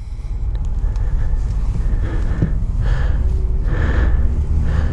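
Ford F-150 pickup running and driving off, heard from inside the cab: a steady low rumble of engine and road noise.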